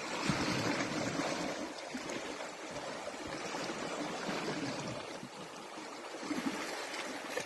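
Sea water splashing and hissing at the surface, a steady rushing wash with no single loud event.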